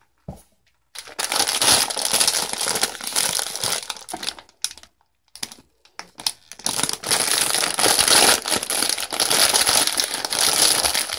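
Clear plastic bag crinkling as hands handle it and pull at its top to open it, in long stretches of dense crackle broken by a short pause about halfway through.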